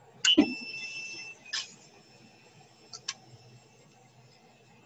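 A few sharp clicks and knocks, the loudest about a quarter second in, with a steady high electronic tone that starts with it, sounds clearly for about a second and then carries on faintly.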